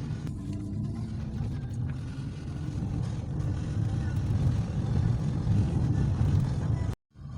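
Steady low rumble of a car on the move, growing a little louder, then cutting off abruptly near the end.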